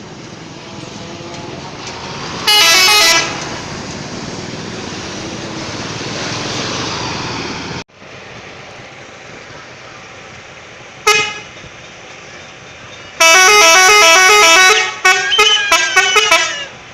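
Bus 'telolet' musical horns. A short stepping horn tune sounds about three seconds in and a single short blast comes near the middle. Near the end a longer stepping tune is followed by a string of quick toots, all over steady background noise.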